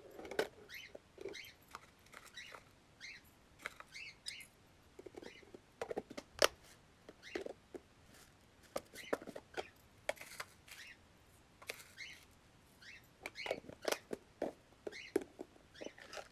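Dry parrot seed and pellets being scooped and poured, with grains pattering and clicking irregularly against containers. There are a few sharper knocks, the loudest about six seconds in.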